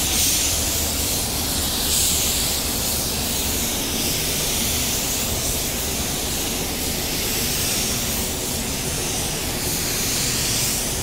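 Compressed-air gravity-feed paint spray gun hissing steadily as it lays a second coat of blue metallic basecoat, with a low steady hum underneath.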